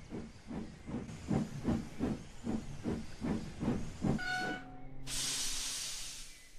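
Steam locomotive sound effect: steady chuffing at about three beats a second, a short whistle about four seconds in, then a loud hiss of steam that cuts off sharply.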